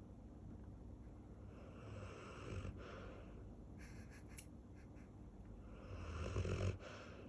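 Golden retriever snoring: two long snores about four seconds apart, the second louder.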